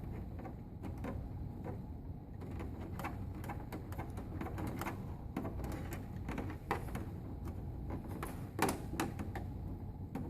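Small clicks and light rattling as the antenna cable's coaxial connector is turned by hand onto the TV's antenna jack, with a sharper click near the end.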